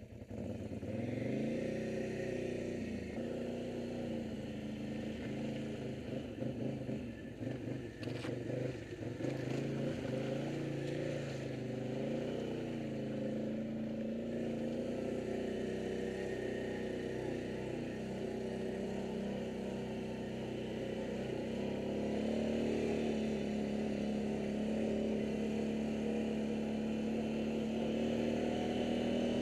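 ATV (quad) engine running while riding a dirt trail, its pitch rising and falling with the throttle. It gets steadier and a little louder in the last several seconds.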